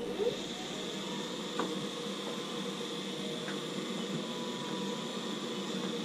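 Navien NCB-240 combi boiler running with its combustion fan on: a steady hum with a higher whine over it. This is the boiler's ordinary running noise, not the vibration noise that is blamed on the fan motor.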